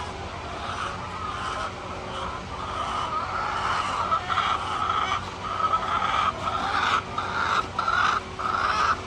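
Chickens clucking and squawking in a run of short calls that grow louder and come closer together in the second half.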